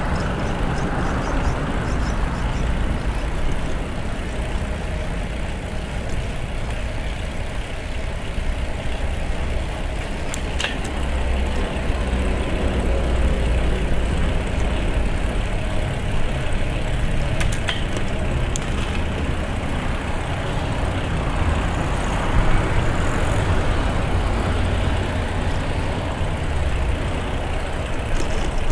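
Steady road-traffic rumble with hiss, heard from a moving bicycle, with heavy low rumble throughout. A few short clicks come about ten and eighteen seconds in.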